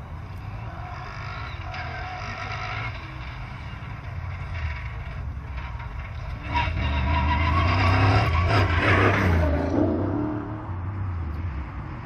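Off-road race truck's engine revving hard as it approaches over the dirt track and passes close by. It is loudest from a little past halfway, and its pitch drops as it goes past before fading.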